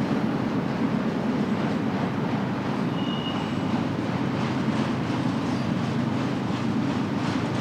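Freight train cars rolling past on the rails, a steady low rumble of wheels on track, with a brief high squeal about three seconds in.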